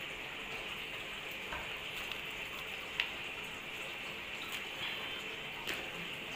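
Hands working a small plant cutting and its potting soil out of a seed tray in a cardboard box: faint crackling and rustling of soil, plastic and cardboard, with a few small clicks, the sharpest about three seconds in, over a steady hiss.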